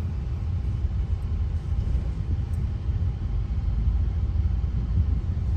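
Car in motion heard from inside the cabin: a steady low rumble of engine and tyres on a rough, bumpy road surface.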